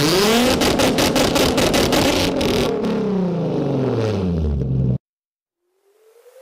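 Nissan 350Z's V6 revved hard and held high, with a rapid stuttering crackle, then the revs fall away and the sound cuts off suddenly. Near the end a rising synth sweep fades in.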